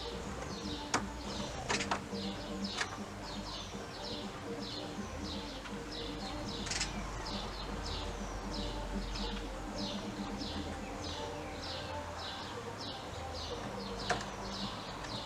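Small garden bird calling repeatedly in short falling chirps, about two or three a second, with a few sharp clicks near the start and one near the end.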